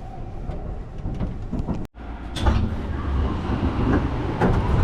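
Low rumble of a JR train carriage in motion, heard from inside, broken by a sudden brief silence about two seconds in, then returning with a few short knocks and clunks.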